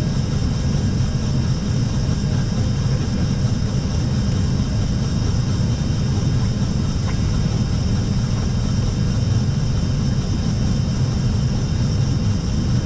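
Airbus A320 cockpit noise on approach: a steady low rumble of airflow and engines with a fainter even hiss.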